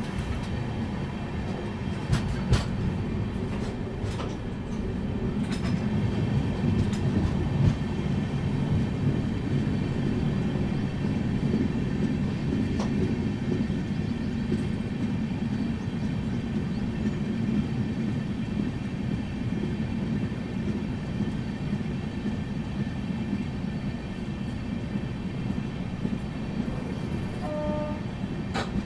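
Indian Railways train running with a steady low rumble of wheels on track. There are a few sharp clicks and knocks in the first several seconds, and a short high tone near the end.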